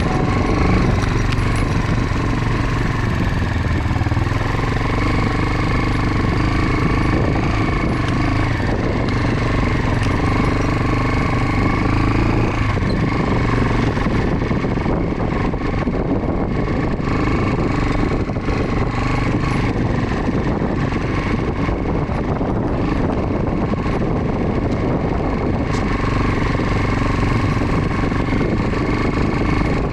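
Motorcycle engine running steadily under way, with a dense rumble of noise around it.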